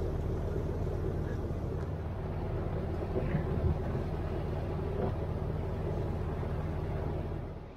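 A sailing yacht's engine running steadily under way, a low even hum with water and wind noise over it. It cuts off sharply near the end.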